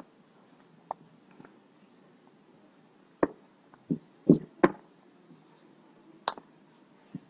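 Marker pen on a whiteboard: short taps and scrapes as numbers are written on the board, about seven sharp ticks spread unevenly, the loudest a little past four seconds in.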